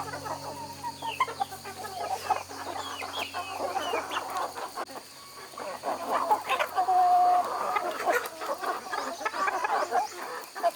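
A flock of chickens clucking and chirping, with many short calls overlapping and one longer held note about two-thirds of the way through.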